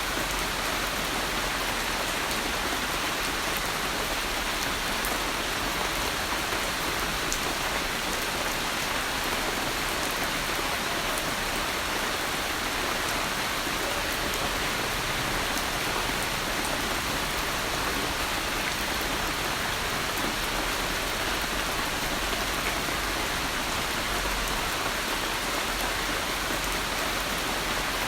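Steady rain falling on a surface, an even hiss with occasional faint drop ticks.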